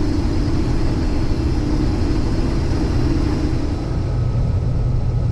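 Case IH 2388 combine running steadily under load while harvesting soybeans, heard from inside the cab: a constant, even drone of engine and threshing.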